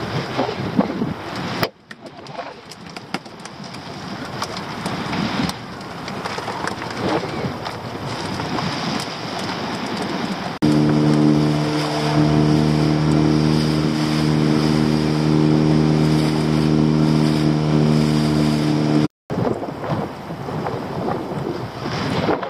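Wind on the microphone and sea around a small open boat. About ten seconds in, an outboard motor cuts in abruptly, running at a steady speed as the boat moves through the water. It cuts out suddenly near the end, leaving wind and waves.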